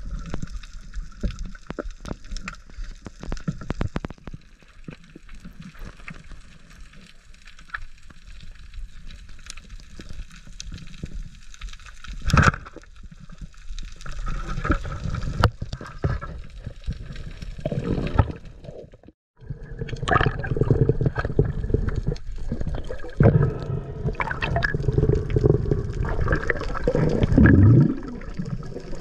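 Underwater sound on a diver's camera: water rushing and gurgling against the housing, with many scattered sharp clicks and crackles. The sound cuts out for a moment about two-thirds of the way through, then the water noise returns louder.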